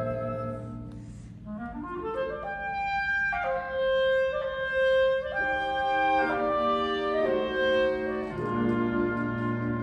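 High school concert band playing, clarinets prominent: a held chord fades, then the woodwinds climb in stepwise notes over sustained chords, and a low chord enters near the end.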